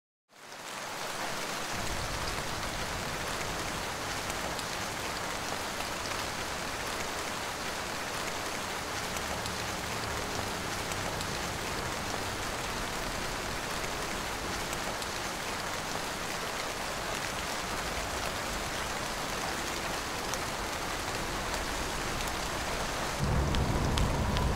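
Steady rain shower falling on the river, an even hiss of drops. A deeper low rumble joins in and grows louder near the end.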